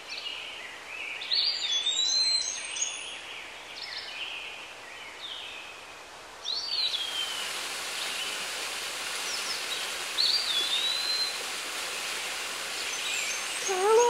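Songbirds chirping and whistling. About six and a half seconds in, the steady rush of a small cascading waterfall comes in and continues under the bird calls.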